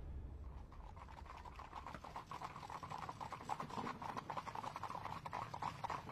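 Hooves of a four-horse carriage team clip-clopping on a paved road, many quick, uneven knocks growing louder as the carriage approaches.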